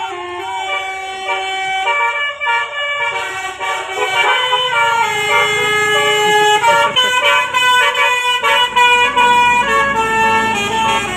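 Telolet basuri musical air horn on a bus, playing a tune of held notes that step from pitch to pitch. Vehicle noise grows under it from a few seconds in.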